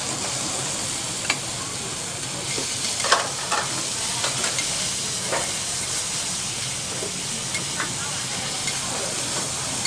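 Vegetables sizzling on a flat-top steel griddle as they are stir-fried with metal spatulas: a steady sizzle with scattered sharp clacks and scrapes of the spatulas against the plate, the loudest about three seconds in.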